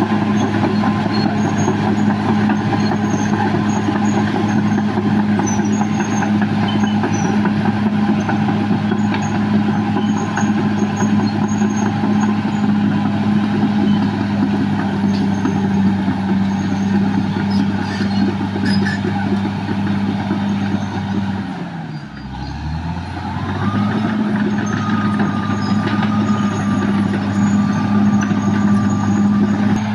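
Caterpillar D6R XL bulldozer's diesel engine running hard and steady. About two-thirds of the way through its speed drops sharply, then picks back up within about two seconds.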